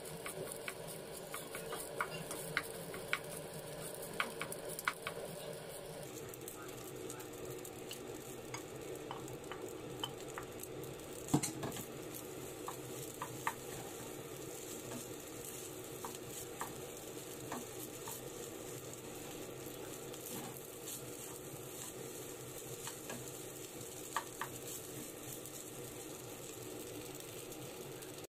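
Fried rice sizzling in a pan as a wooden spatula stirs and scrapes through it, with sharp taps of the spatula against the pan now and then, the strongest about eleven seconds in.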